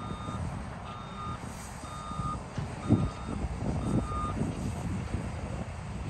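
JCB 419S wheel loader's reversing alarm beeping about once a second, stopping a little past four seconds in, over a low engine rumble. A single thump about three seconds in is the loudest moment.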